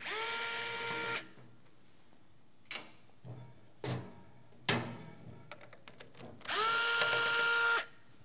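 Small electric screwdriver running twice, about a second each, its motor whine rising as it spins up and then holding steady while it drives screws in the plastic chassis of a portable TV. A few sharp knocks of handling fall in between.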